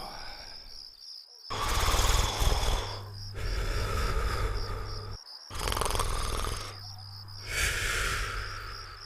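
Cartoon snoring: two long snore cycles, each a loud rasping in-breath followed by a softer out-breath. Steady cricket chirping runs underneath.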